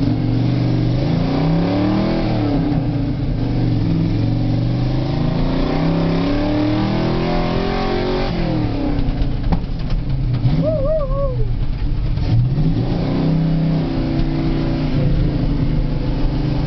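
GMC 4x4 truck's engine heard from inside the cab, revving up and down as it climbs and drives over a rough dirt track, its pitch rising and falling repeatedly. A few short knocks sound around the middle, and a brief high wavering tone about ten and a half seconds in.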